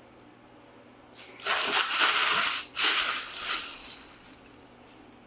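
Plastic packaging crinkling and rustling as kit parts are handled and unwrapped, in two long swells that fade out.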